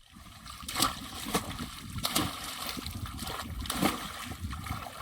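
Water splashing and sloshing in irregular strikes, several sharper splashes among them, as in someone moving or working in shallow water.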